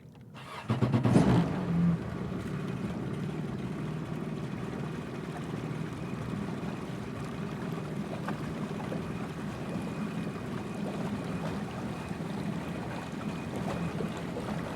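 Yamaha WaveRunner personal watercraft engine starting: the starter cranks briefly, the engine catches about a second in with a short loud burst of revs, then settles into a steady idle.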